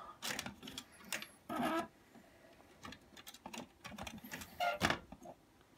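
Short, irregular clicks and scrapes of plastic and circuit board as a radio-cassette player's main circuit board is shifted into place in its plastic chassis.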